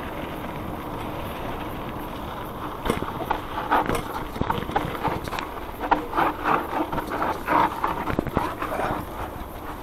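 1992 Trek 820 rigid-fork mountain bike rolling over a rough dirt trail. The ride starts as steady rolling noise, and from about three seconds in the bike rattles and clatters in quick irregular knocks over the bumps.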